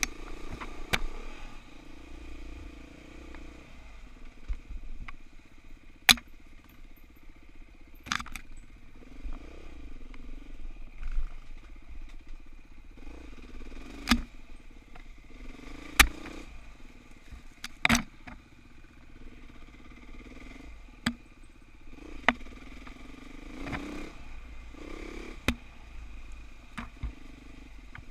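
Dirt bike engine running at low to moderate revs on a trail ride, its pitch rising and falling with the throttle. Sharp knocks and clacks come every few seconds as the bike jolts over rocks and roots.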